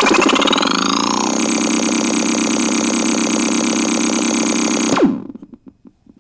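Synthesizer playing a harsh, dense cluster of tones whose pitches slide apart during the first second, then hold as a steady buzz with a fast pulsing flutter. It cuts off abruptly about five seconds in.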